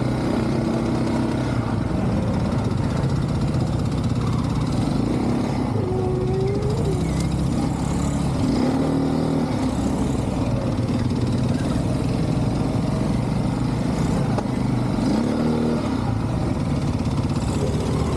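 ATV engine running steadily, with a few brief rises and falls in pitch.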